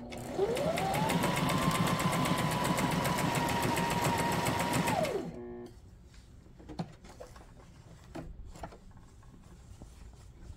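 Brother SM2700 sewing machine sewing a decorative stitch into cotton fabric. Its motor whine rises to a steady speed under rapid, even needle strokes, then winds down and stops about five seconds in. A few faint knocks follow as the fabric is moved.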